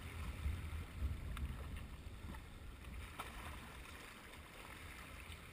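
Low wind rumble on the microphone over choppy sea water, with faint water noise and a few soft, scattered clicks.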